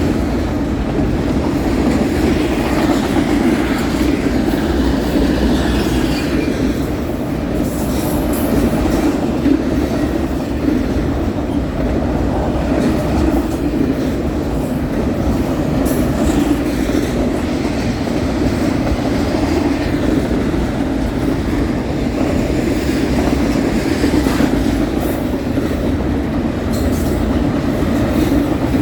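Fast BNSF intermodal freight train rolling past at speed: a steady, loud rumble of steel wheels on rail, with occasional faint clicks.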